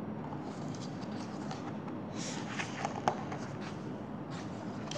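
Paper rustling and light handling clicks as a picture-book page is turned and the book moved, with one sharp tap a little after three seconds in.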